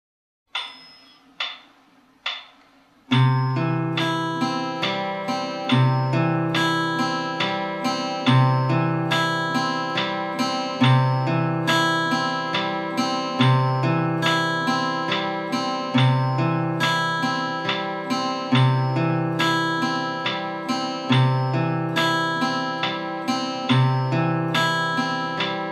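Acoustic guitar fingerpicked in a broken-chord pattern: a low bass note starts each bar, about every two and a half seconds, followed by plucked upper strings, with the chord changing bar by bar. Before the playing starts there are three count-in clicks about a second apart.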